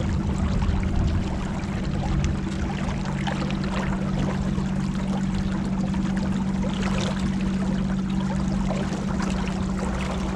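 Motorboat engine running steadily at cruising speed, with water rushing and splashing along the hull.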